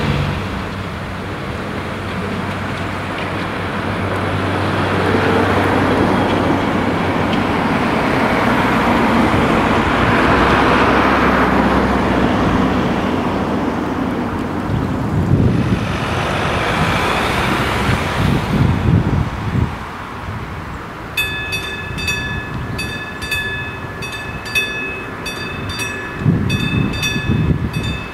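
Road traffic passing over a railway level crossing, rising and falling as vehicles go by. About three quarters of the way through, the crossing's classic mechanical warning bell starts ringing at about two strikes a second, signalling an approaching train.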